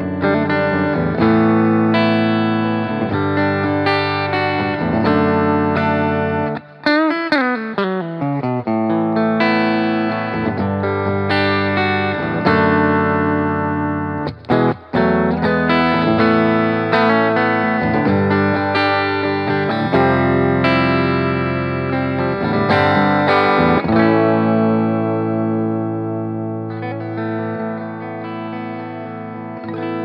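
EVH Wolfgang Standard electric guitar played through effects over a backing track: sustained lead notes and runs, with a falling pitch glide about seven seconds in. The music fades gradually toward the end.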